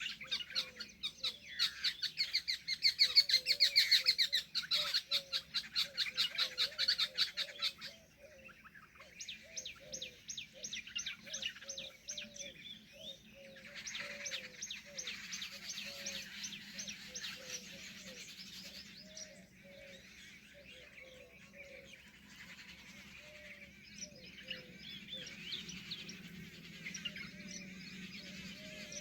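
Several small birds chirping and trilling in fast, dense runs of high notes, loudest for the first eight seconds and then quieter, with a short low note repeating steadily underneath.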